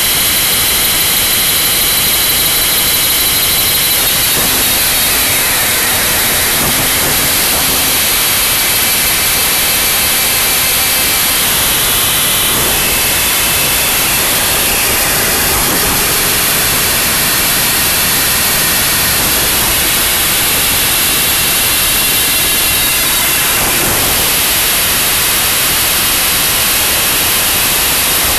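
Harsh noise wall recording: a dense, unchanging wall of static noise at constant loudness, with faint high tones drifting in and out beneath it.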